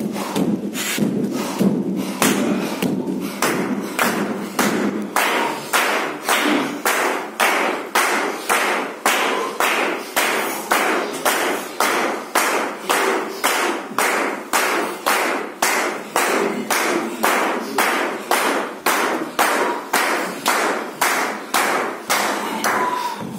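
A circle of men clapping hands and stamping on a wooden floor in a steady beat, about two strokes a second.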